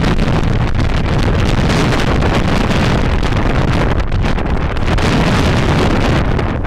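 Hurricane Sandy's gusting wind buffeting the microphone: loud, steady wind noise with a deep rumble, dipping briefly about four seconds in.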